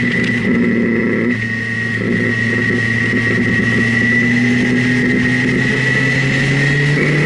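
Motorcycle engine running at steady road speed with wind rush over the bike; its note changes about a second and a half in and rises near the end as the revs climb.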